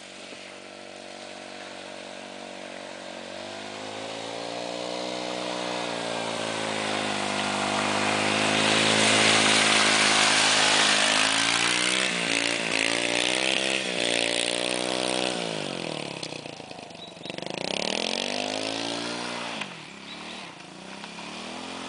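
ATV engine running as the four-wheeler is ridden, its pitch rising and falling with the throttle. It grows louder to a peak about nine seconds in, fades away, then briefly comes close again near the end.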